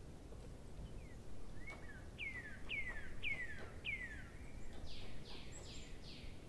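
A bird calling: a series of four clear whistled notes, each falling in pitch, about half a second apart, then a quicker run of four higher falling notes. Steady low background noise runs underneath.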